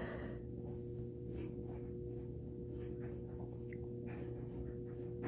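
Steady electrical hum, a low drone with two fainter higher tones held throughout, with a few faint soft clicks.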